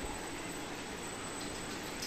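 Steady low hiss of background noise, with no distinct sound standing out.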